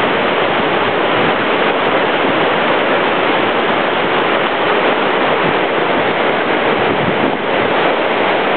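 Whitewater river rapids: a loud, steady rush of churning water.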